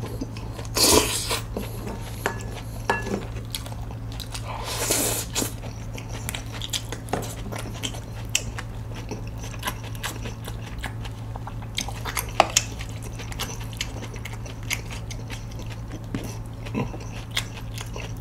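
Close-miked eating of jjajang noodles: two longer slurps about a second and five seconds in, then chewing with many short wet clicks. Occasional chopstick clicks on the plates, over a steady low hum.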